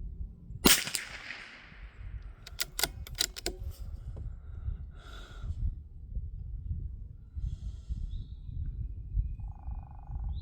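A single shot from a Ruger Precision Rimfire .22 LR rifle with a short fading echo, followed about two seconds later by a quick run of sharp metallic clicks from the bolt being worked to eject the case and chamber the next round.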